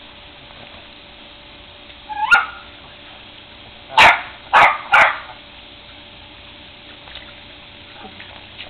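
Small Yorkshire terrier barking three times in quick succession, after a single short yip about two seconds earlier.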